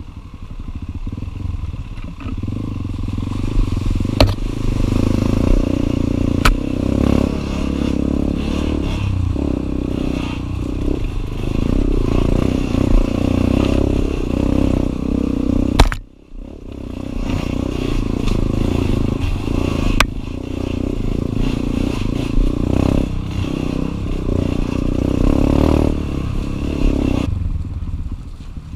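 Enduro dirt-bike engine running, its revs rising and falling, with clatter and a few sharp knocks. The sound cuts out briefly right after a sharp knock about sixteen seconds in, then picks up again.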